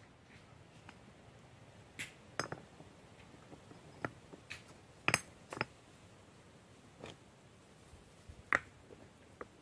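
Flat stones clinking and knocking against one another as they are set by hand onto a stacked stone wall: about nine sharp, separate knocks at irregular intervals.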